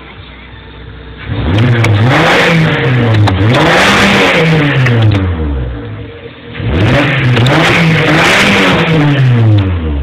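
VW Polo engine revved hard in two bursts, the pitch climbing and falling back twice within each burst, with a short dip between the bursts about six seconds in.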